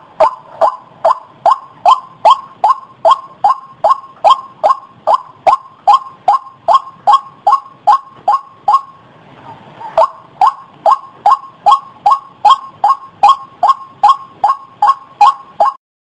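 White-breasted waterhen calling: a monotonous run of loud 'ruak' notes repeated at about two and a half a second. It breaks off for about a second a little past halfway, then picks up again at the same pace.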